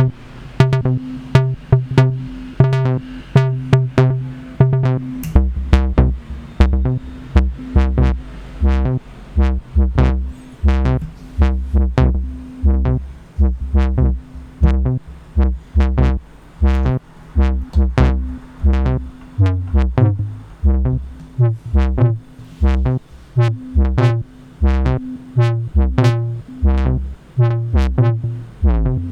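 Vermona PERfourMER MKII analog synthesizer playing looped step-sequenced patterns on several MIDI channels at once, a repeating rhythm of short notes. A low bass line joins about five seconds in.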